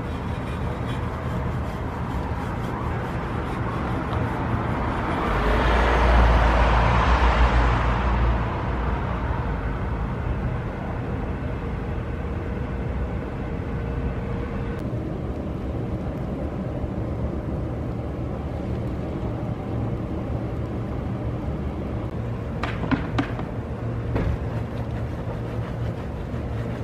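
Steady low machine hum with a louder rushing swell about five to eight seconds in, and a few sharp clicks near the end.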